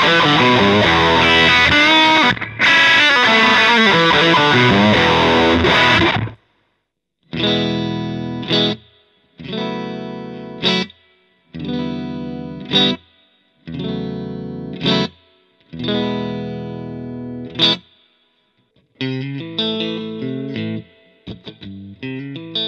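Electric guitar played through an Ampeg R-212R Reverberocket tube combo amp with an overdriven tone, as a play test of the repaired amp. A dense run of playing cuts off about six seconds in. Then come five sustained chords, struck about every two seconds and left to ring out, and choppy short stabs near the end.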